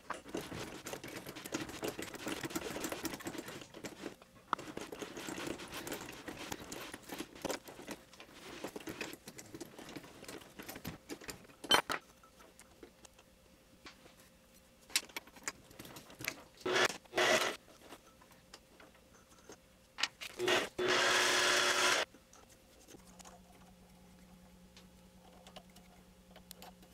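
Hand work at a mini lathe chuck: a rag rubbing over the threaded aluminium rod, then scattered metal clicks and clinks as the part and hex nuts are handled. About twenty seconds in, a louder mechanical whir lasts a second or so.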